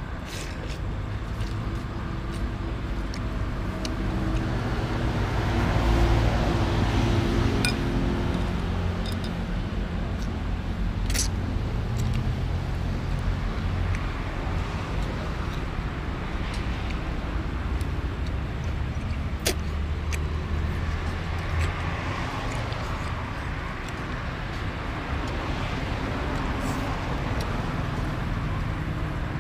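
Road traffic passing close by: a steady low engine rumble that swells twice as vehicles go past, loudest about six seconds in, with a few sharp clicks on top.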